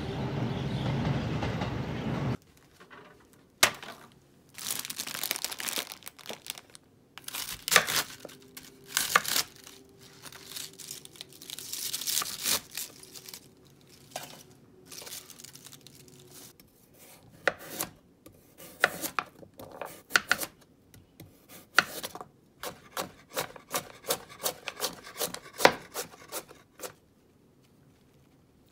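Kitchen knife cutting cabbage and other vegetables on a cutting board: scattered crunchy cuts and rustling of leaves, then a fast run of chops, about three or four a second, near the end. Background music plays for the first two seconds.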